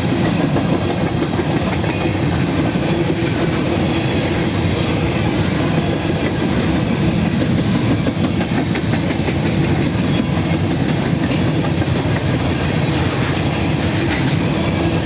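Empty grain hopper cars of a freight train rolling past, a steady, loud rumble and clatter of steel wheels on the rails.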